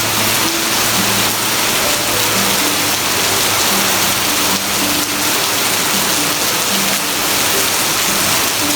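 Steady heavy rain hissing, with soft background music playing a slow melody of held notes underneath.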